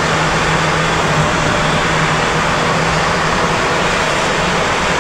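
A steady rush of wind and rain while riding at an even speed in a downpour, over the BMW S1000RR's inline-four engine, which holds a steady hum.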